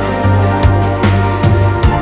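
Background music with a steady electronic beat and heavy bass.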